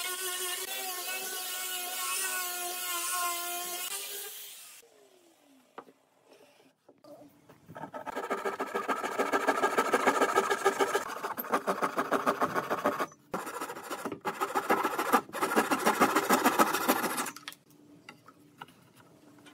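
Angle grinder with a sanding disc running against a wooden hull, its motor whine wavering under load, stops about four seconds in. After a short pause, a steel blade is scraped hard along the edge of a wooden board: a loud, rapid, buzzing chatter in three long passes.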